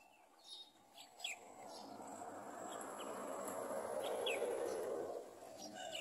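Short high chirps, scattered and falling in pitch, typical of yellow-vented bulbul nestlings begging. Under them a broad rushing noise swells from about a second and a half in and fades near the end, and it is the loudest sound.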